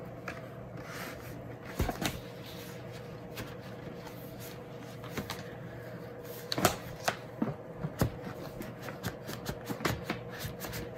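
Paper and cardboard being handled: a vinyl record's gatefold jacket and large printed insert being opened, slid and unfolded, rustling with irregular crinkles and taps, a few sharper ones in the middle.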